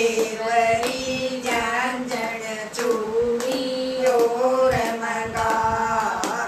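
Women's voices singing a Haryanvi folk bhajan together, with long held notes, while their hand claps keep time.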